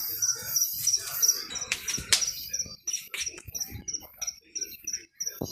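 Insects chirping steadily in a high, regular pulse, about four chirps a second, with scattered sharp cracks and pops from a burning wood bonfire.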